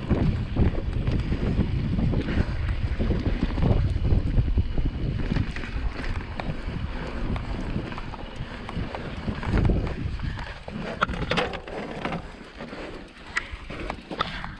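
Mountain bike riding down a rocky downhill trail: wind buffeting the microphone over the rumble and rattle of tyres and frame on the rocks. About ten seconds in, the rumble drops and sharp clicks and knocks of rock and bike take over.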